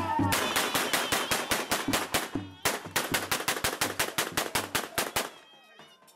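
A rapid run of sharp bangs, about six a second, in two runs split by a short break about two and a half seconds in, stopping about five seconds in.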